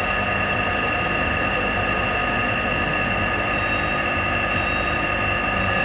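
Milling machine running steadily while center drilling bolt holes, a constant whine with several steady high tones over a low rumble.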